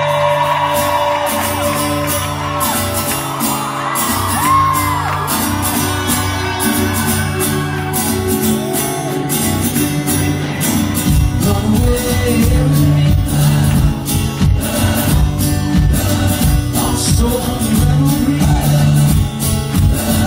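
Live band playing in a large hall, heard from the audience: a singer over bass and keyboards, with the drums coming in strongly about halfway through.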